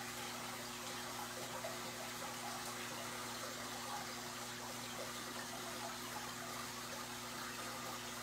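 Aquarium airstones bubbling: a steady fizzing stream of air bubbles rising through the tank water, over a constant low hum.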